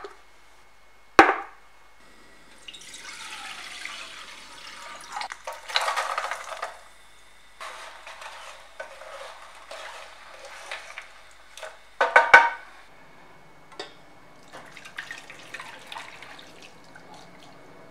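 Kitchen sounds: two sharp clinks of crockery at the start, then a wooden spatula stirring lumps of palm sugar dissolving in water in a metal pot. About twelve seconds in there is a loud clatter of metal, and near the end the dark syrup is poured through a small strainer into a steel bowl.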